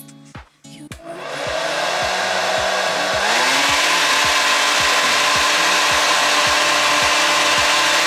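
KISS 1875 Pro Tourmaline Ceramic hair dryer switched on: its fan spins up about a second in, then steps up louder and higher about three seconds in, onto its high setting, and runs with a steady loud rush of air and motor hum. This is the noisy old dryer that the owner calls a clunker, way louder than her new one.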